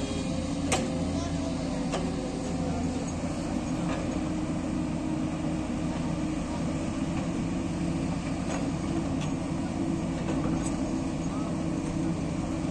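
JCB excavator's diesel engine running steadily under load as its arm pushes a large boulder, with a few faint clicks.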